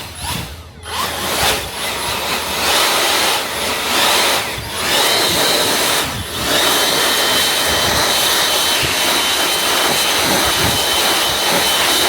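Leaf blower running, blowing acorns and debris out of a riding mower engine's cooling fins: a loud, steady rush of air that starts about a second in, dips briefly twice, and carries a steady high whine from midway on.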